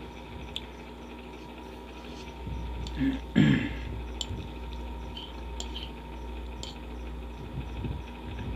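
Eating sounds: a fork clinking and scraping against a ceramic bowl and chewing, over the steady hum of an electric fan. There is a short, louder noise about three seconds in.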